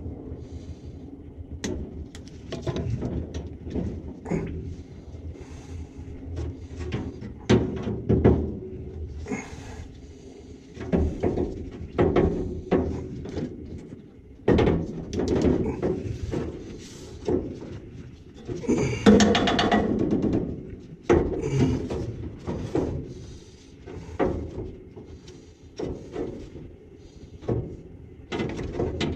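Irregular knocks, clunks and rubbing from tools and parts being handled, with a longer, louder rattling scrape about nineteen seconds in.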